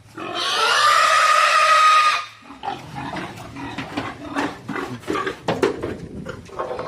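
Pig squealing loudly for about two seconds, then a run of short grunts and clicking sounds from pigs.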